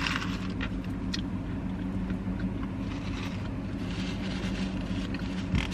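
Steady low hum of a parked car's engine idling, heard from inside the cabin, with a few small clicks and soft paper-wrapper rustling from eating, and a brief knock near the end.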